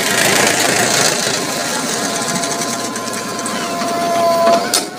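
JCB 3DX backhoe loader's diesel engine running hard with a fast, even rattle, and a steady whine that wavers as the backhoe arm swings a bucket of soil over the trolley. A sharp knock near the end.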